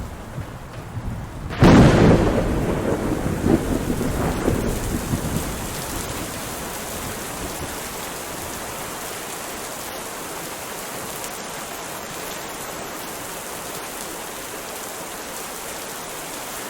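Steady rain with a thunderclap: a sudden sharp crack about one and a half seconds in, then rumbling that rolls on in waves for a few seconds and fades back into the rain.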